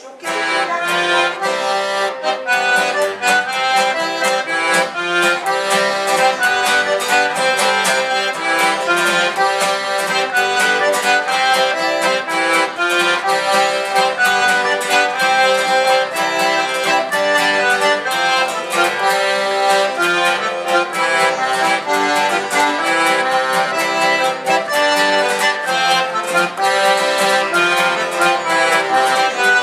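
Accordion playing a traditional Breton fest-noz dance tune over acoustic guitar accompaniment, with a steady beat. The tune starts right at the beginning after a brief pause.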